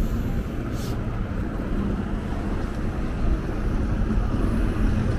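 Steady city traffic rumble from road vehicles such as buses and cars, with wind buffeting the microphone. There is a brief hiss about a second in.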